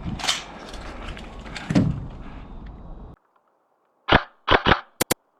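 Outdoor field noise with a few sharp cracks, then an abrupt cut to silence about three seconds in. About a second later come three loud gunshot-like bangs in quick succession, then two very sharp clicks.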